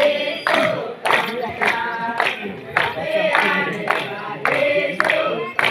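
A group of voices singing a garba song, with hand claps keeping a steady beat about twice a second.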